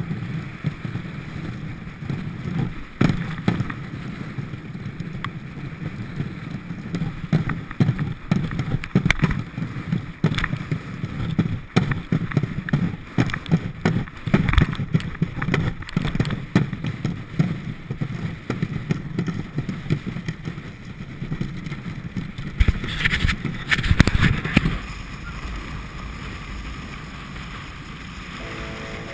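A dog sled's runners scrape and rattle over ice and hard snow, with a steady rumble and many sharp knocks and clatters. About 23 s in there is a louder stretch of buffeting, then the noise settles, and music begins right at the end.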